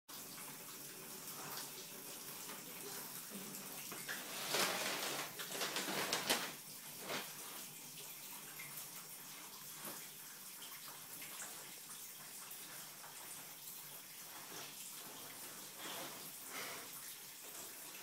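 Canister vacuum cleaner running with a steady rushing noise, getting louder and uneven for about two seconds a few seconds in.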